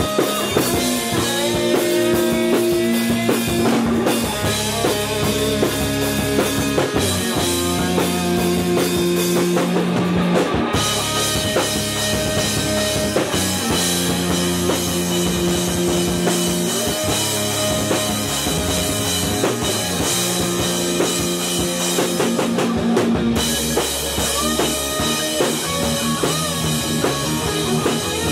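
Heavy metal band playing live in the room: an Ibanez electric guitar, a four-string electric bass and a drum kit, with sustained notes over steady drumming.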